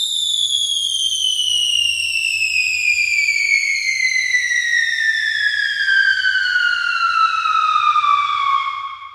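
Cartoon descending-whistle sound effect: one long whistle tone sliding slowly and steadily down in pitch, fading out near the end.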